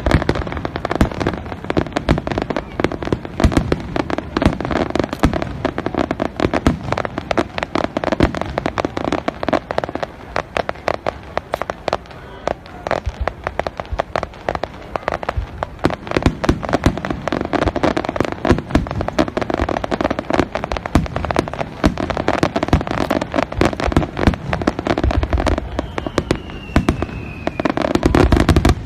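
Fireworks display: a dense, continuous barrage of bangs and crackles from bursting aerial shells. A faint falling whistle comes near the end, just before a heavier, deeper boom.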